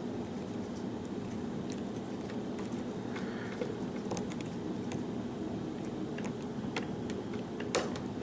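Scattered small metallic clicks and ticks of a lock pick and tension wrench working the pins of a pin-tumbler challenge lock, with a few sharper clicks near the end, over a steady low background hum.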